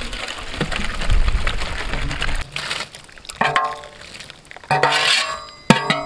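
Yellow wash water and cleaned goat intestine pieces poured from a large metal pot into an aluminium basin, splashing for about two and a half seconds. Background music with plucked notes comes in about halfway through.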